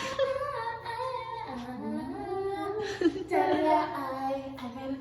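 A voice singing a melody, with long held notes that slide between pitches and no breaks between words.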